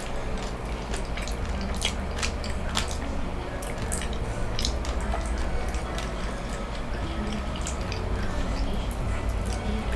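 Close-miked chewing of cheesy loaded tacos: wet, squishy mouth sounds and smacks with many scattered small clicks.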